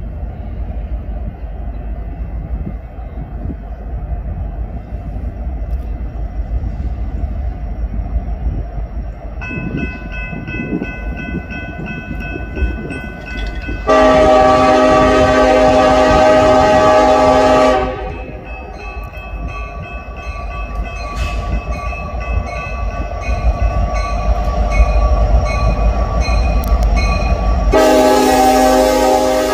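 Diesel locomotive of an approaching Kansas City Southern grain train, its engine and wheels rumbling low. Its air horn comes in faintly about a third of the way in, gives a loud long blast around the middle, sounds more softly after it, and starts another loud blast near the end.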